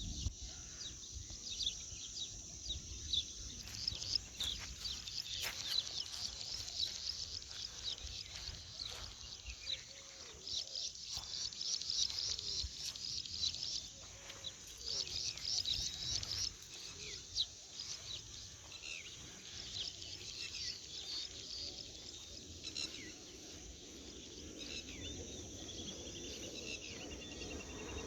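Birds chirping in many short, high calls, thickest in the middle of the stretch, over a steady low rumble.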